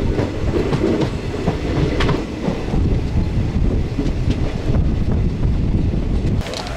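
Indian Railways passenger train running along the track, heard on board: a steady low rumble with occasional short clicks from the wheels and rails.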